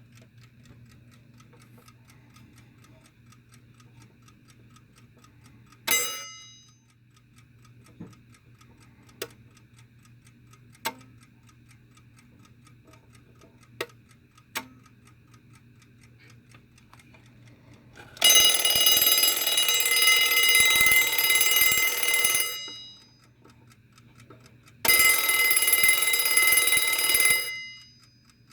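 Early Westclox Big Ben Model 1 'peg leg' alarm clock ticking, with one bell strike that dies away about six seconds in and a few sharp clicks. Later its alarm bell rings loudly for about four seconds, stops, and rings again for about two and a half seconds near the end.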